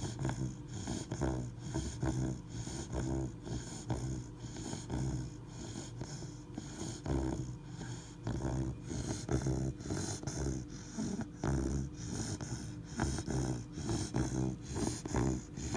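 Three-month-old Labrador retriever puppy snoring in its sleep: a steady, rhythmic run of short snoring breaths.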